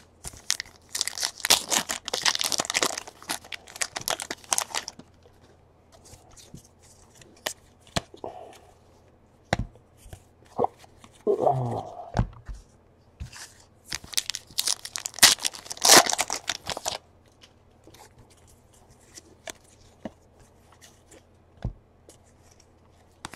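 Foil trading-card pack wrappers being torn open and crinkled, in two bursts of a few seconds each, one near the start and one past the middle, with light ticks and taps of cards being handled between them.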